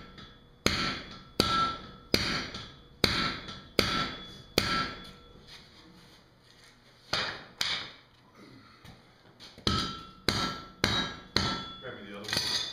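Sledgehammer and hand-hammer blows on hot iron at a blacksmith's anvil, each with a short metallic ring. Six evenly spaced striker blows come in the first five seconds, about one every three-quarters of a second. After a pause there are two blows, then a further run of about six hammer blows near the end.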